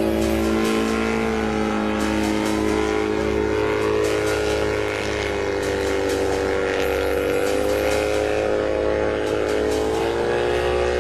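Homebuilt single-seat helicopter in flight: its engine runs with a steady drone whose pitch slowly dips and rises again.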